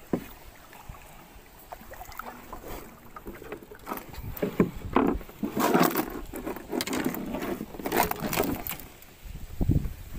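Irregular knocks and bumps against a small boat's hull, with water sloshing around the boat; the loudest knocks come between about four and nine seconds in.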